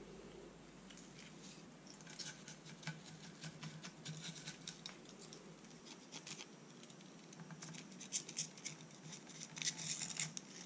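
Knife blade scraping and clicking against limpet shells as the meat is cut out of them: a faint run of small scratches and clicks that comes in clusters and is loudest near the end.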